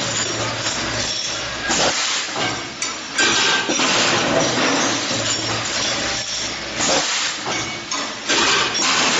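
Rod sharpening machine running and grinding points on steel rods for T-wrenches. A loud, uneven grinding hiss surges and eases every second or so over a steady motor hum.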